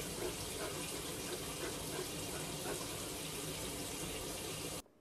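A steady rushing hiss, with no distinct strokes or tones, that cuts off suddenly near the end.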